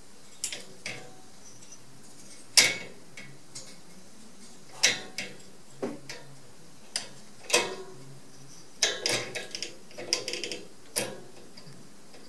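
Metal barrel bolt latch and wire-mesh cage door clicking and rattling irregularly as a cat paws at the latch to open it. A single sharp knock about two and a half seconds in is the loudest, and a quick flurry of rattles comes about three-quarters through.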